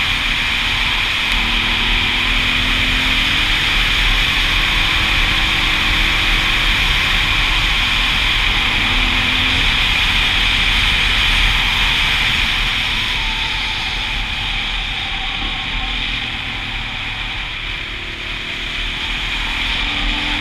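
Wind rushing over an action camera's microphone while riding a dual sport motorcycle, with a single-cylinder engine running faintly underneath. The rush eases off somewhat past the middle and builds again near the end.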